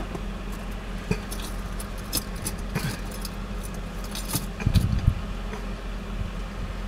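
Steady low hum of an idling vehicle, with scattered light clicks and handling noises and a brief louder rustle about five seconds in.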